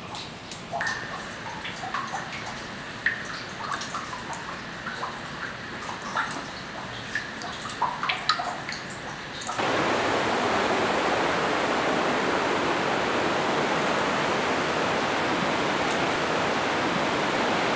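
Water dripping into the standing water of a flooded mine tunnel, a scatter of small plinks and drips. About nine and a half seconds in it cuts to the steady rush of a creek.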